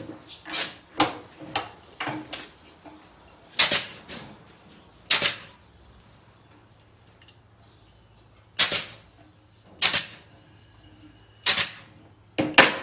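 Pneumatic 15-gauge C-ring gun (Kamsin K-SC7C) firing C-rings to fasten chicken wire: sharp snaps, about eight of them at irregular intervals, two coming close together near the end.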